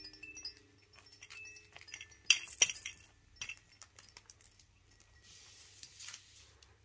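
Hanging plastic baby play-gym rattle toy jingling and clinking as a puppy mouths and bats at it. The loudest burst of rattling comes about two and a half seconds in.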